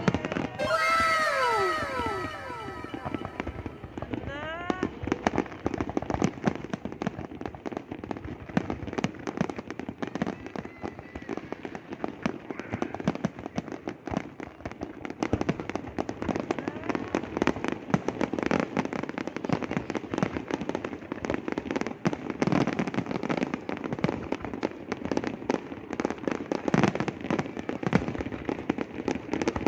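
Fireworks display: a continuous, dense crackling and popping of bursting shells, with a few sliding tones in the first few seconds.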